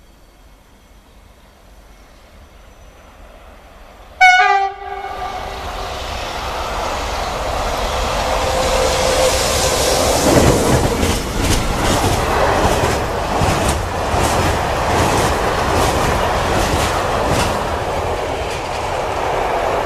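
A BB 26000-series electric locomotive sounds one short, loud horn blast about four seconds in. The locomotive and its freight train of container wagons then pass, a rumble that builds and stays loud, with repeated clacks from the wheels over the rail joints.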